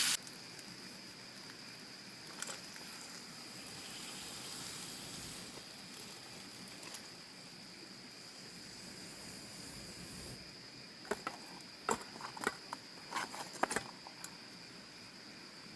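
Crickets trilling, one steady high-pitched note that runs on without a break. About eleven seconds in come a string of sharp clicks and light knocks.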